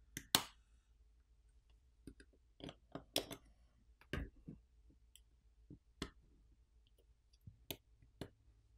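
Scattered small clicks and taps of a metal pry tool and fingertips on a smartphone's internals as the coaxial antenna cable connectors are popped off the main board. The clicks come irregularly, about fifteen in all, the loudest about half a second and about three seconds in.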